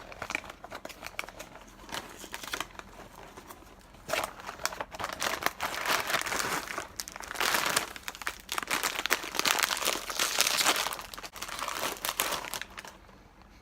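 A snack-cracker package being opened by hand: the packaging crinkles and tears, in irregular crackles with louder stretches in the middle and latter part.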